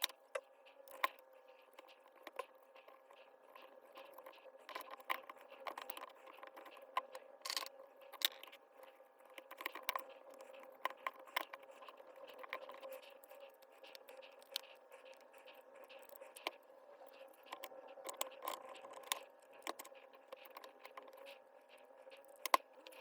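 Scattered sharp clicks and light scrapes of hammer drill parts being handled and fitted, over a faint steady hum.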